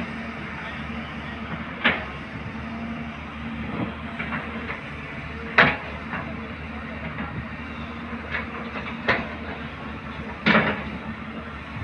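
Excavator diesel engine running steadily, with sharp clanks from the machine's working gear: one about two seconds in, a loud one near the middle, and two more near the end.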